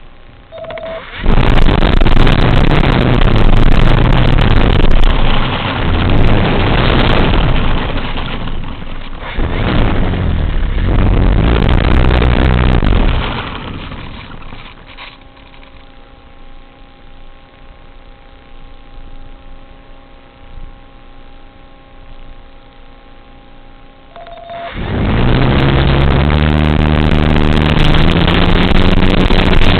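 FPV quadcopter's electric motors and propellers under throttle: a loud buzzing whose pitch steps up and down. Around the middle it drops to a faint steady hum, and near the end it surges loud again, with a short beep just before each loud stretch.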